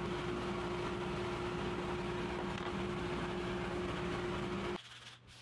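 Table-mounted router running steadily with no wood being cut, a constant hum with a steady whine, which stops abruptly near the end.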